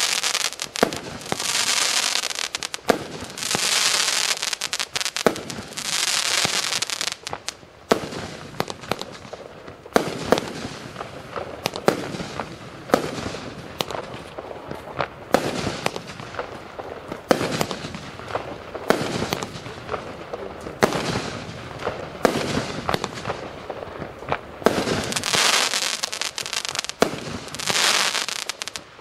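A 255-shot compound fireworks cake firing. Long hissing swells of crackle come every second or two at the start and again near the end. Between them, from about 8 seconds in, shots bang out in quick succession, several a second.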